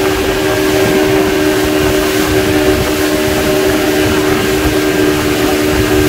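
Motorboat engine running steadily at speed, a constant droning tone over the noise of wind and water rushing past the hull.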